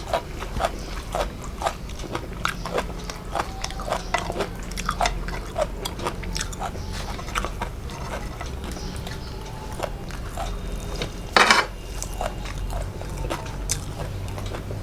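A person chewing and biting food close to the microphone: many short wet clicks and crunches at an uneven pace, with one louder sound about eleven and a half seconds in.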